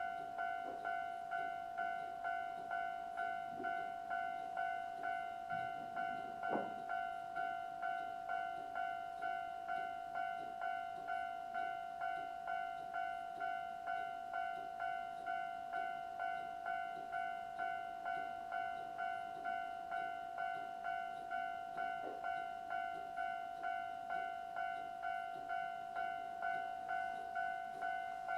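Electronic Japanese level crossing alarm (Toho Denki Kogyo sound generator) sounding its repeated 'kan-kan' tone, about one and a half strokes a second, each stroke fading, turned down by an attenuator. A short knock about six seconds in.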